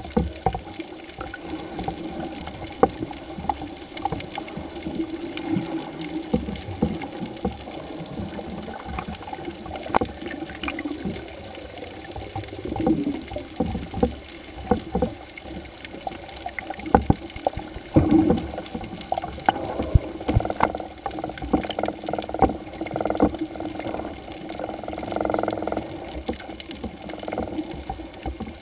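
Underwater sound picked up by a submerged camera: a steady muffled rush of water with many scattered clicks and crackles. A few louder swells rise out of it around the middle and near the end.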